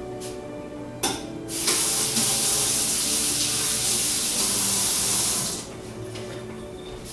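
A click about a second in, then a kitchen sink faucet running full for about four seconds while a tablespoon is rinsed under it, then shut off abruptly.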